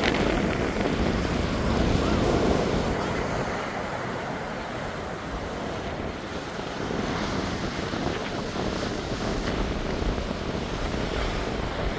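Ocean surf breaking and washing ashore, a heavy swell raised by a distant hurricane, with wind buffeting the microphone. The roar is loudest in the first few seconds, eases in the middle and builds again near the end.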